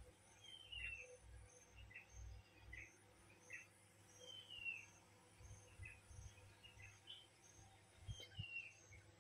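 Faint birds chirping, with three short descending calls among scattered single chirps, over a soft high-pitched pulse repeating about twice a second and faint low rumbles.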